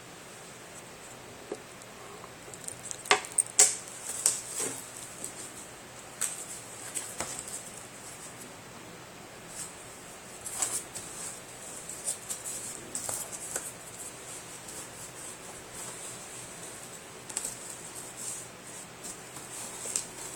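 Cardboard box and a plastic-sleeved art print being handled: scattered crinkles, rustles and sharp little clicks. The loudest cluster comes about three to four seconds in.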